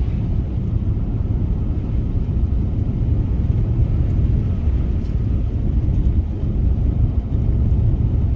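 Steady low rumble of a car driving on a snow-covered road: tyre and engine noise.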